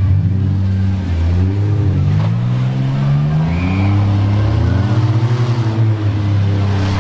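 Demolition derby car engines revving up and down, their pitch rising and falling again and again, with more than one engine heard at once.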